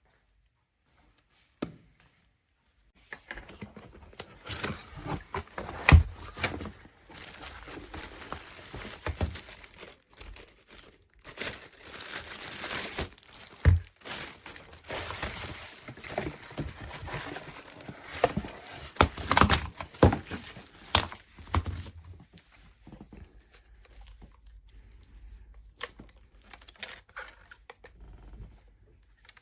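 Crinkling and rustling handling noise with scattered sharp knocks, the loudest about six and fourteen seconds in. It thins to faint rustles after about twenty-two seconds.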